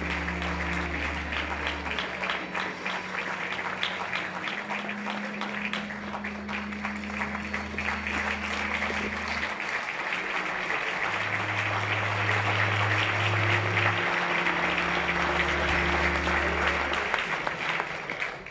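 An audience applauding, with background music of long held low notes beneath it. The applause grows louder in the second half and cuts off suddenly at the end.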